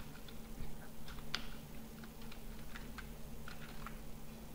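Computer keyboard keys clicking in short, irregular runs of typing, over a faint steady low hum.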